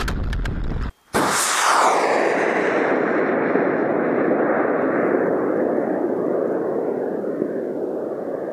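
Roar of a high-power rocket's CTI K300 solid motor heard from the launch pad. It starts suddenly about a second in after some clicking and rustling, its hiss dulls over the first couple of seconds, and then it settles into a steady rushing roar that slowly fades as the rocket climbs away.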